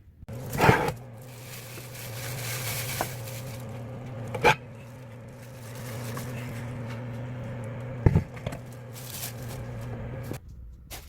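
A small electric kitchen appliance motor running steadily with a churning hiss as it works the food, punctuated by three sharp knocks, then cutting off suddenly near the end.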